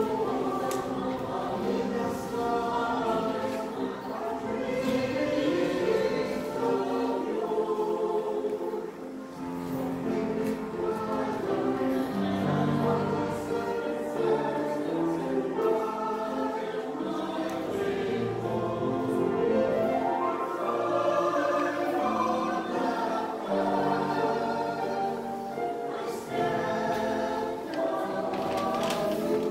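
Mixed choir of men and women singing a Buddhist hymn in harmony, with sustained sung notes.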